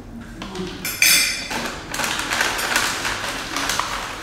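Food packaging and containers being unpacked onto a tray table: a sharp clink with a brief ring about a second in, then rustling and light knocks of plastic bags and tubs.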